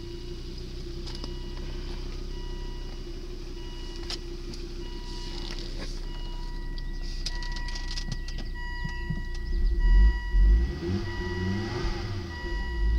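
2001 Volvo V70's inline five-cylinder engine idling steadily, then revved a couple of times near the end. Over it, the car's warning chime repeats on and off.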